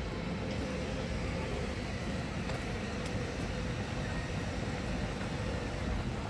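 Steady outdoor city ambience: a constant low rumble under an even hiss, with no distinct events.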